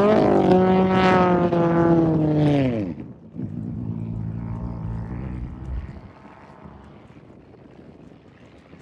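Off-road race vehicle's engine passing close at high revs, running loud and steady, then dipping in pitch and dropping away about three seconds in; a quieter engine note follows and fades out a few seconds later.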